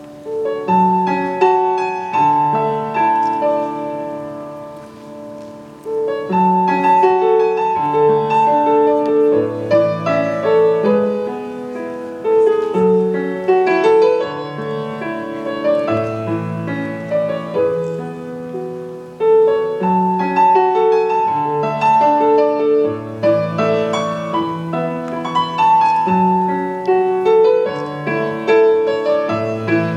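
Piano playing a classical-style piece in held, flowing phrases, with a fresh phrase starting louder about six seconds in and again near twenty seconds.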